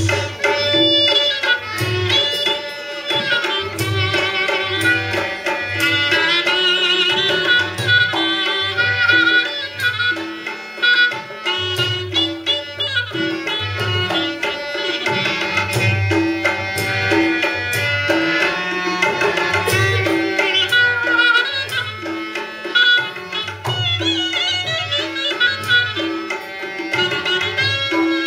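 Traditional Rajasthani folk music: a hand drum keeps a steady, repeating beat under a wavering, ornamented melody.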